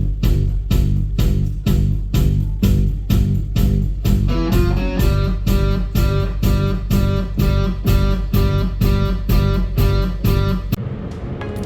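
Upbeat music with strummed electric guitar, bass and a steady driving beat of about three hits a second; the beat drops out near the end.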